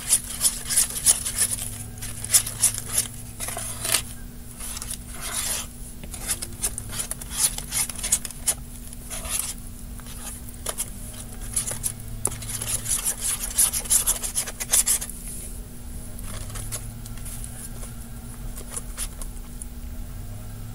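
A spoon stirring glue slime in a bowl: repeated scraping and clicking strokes, dense for about the first fifteen seconds, then fainter and sparser.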